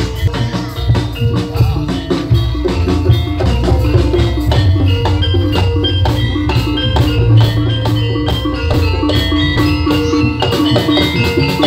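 Jaranan senterewe gamelan music: hand drums and mallet-struck metal keyed instruments play a busy, steady rhythm over sustained metallic tones.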